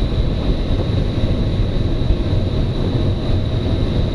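Steady rush of air over an engineless glider in flight, heard from inside the cockpit, with a thin steady high-pitched tone over it.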